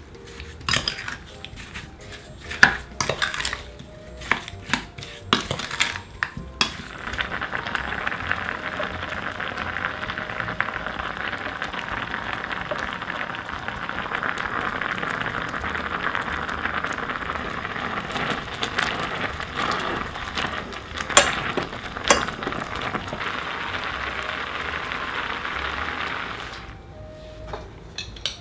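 A wooden spoon stirring sugar into diced peaches in an enamel saucepan, with scrapes and knocks against the pot. About seven seconds in, this gives way to a steady bubbling hiss of the peach and sugar syrup boiling in the pan, broken by a couple of clicks, and it stops a couple of seconds before the end.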